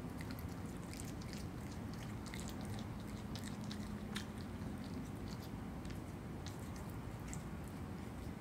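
Virginia opossum chewing and biting into a rotisserie chicken, giving many quick, irregular wet clicks and smacks over a steady low background hum.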